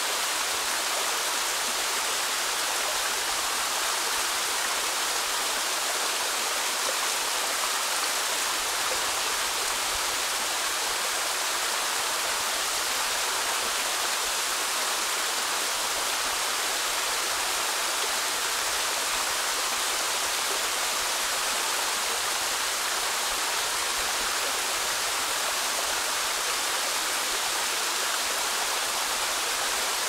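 Mountain stream splashing down a small cascade over boulders: a steady, unbroken rush of water.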